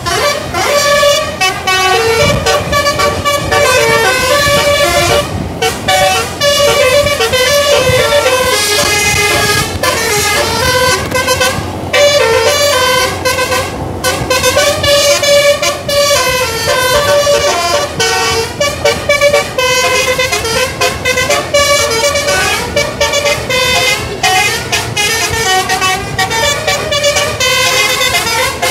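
Bus telolet horn (basuri multi-tone horn) playing long melodic runs: bright horn notes jumping in pitch several times a second, with brief breaks between phrases.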